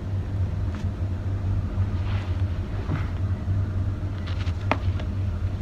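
A steady low hum, like a room's running machinery, with a few faint rustles and one sharper click as a rabbit shifts about on a bed under a person's hand.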